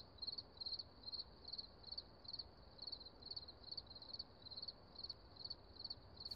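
Cricket chirping steadily, short high trilled chirps repeating about two or three times a second.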